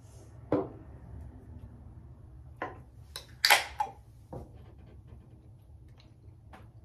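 Scattered knocks and clinks of a shot glass and beer bottle being handled while drinking: a sharp knock about half a second in, and a louder cluster of clinks about three and a half seconds in, then a few faint ticks.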